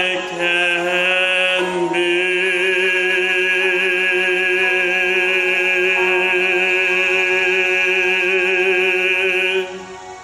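A man's solo singing voice: a few short notes, then one long held note with vibrato that stops about nine and a half seconds in, its echo fading away in the church.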